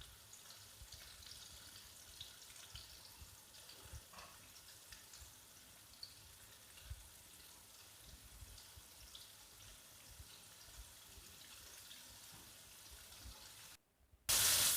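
Chicken pieces frying in hot vegetable oil: a faint sizzle with scattered small pops and crackles. Near the end, after a brief dropout, a much louder, steady sizzle starts.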